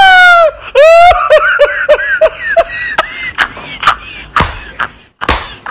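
A high-pitched cackling laugh: a long shrill falling cry, then a quick run of short 'ha's about four a second, trailing off into short breathy gasps.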